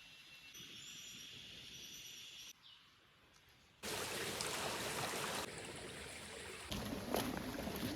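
Forest ambience cut together in short pieces: faint high bird calls over a quiet background, then, about halfway through, a sudden switch to a loud, steady rushing noise with a few snaps and clicks.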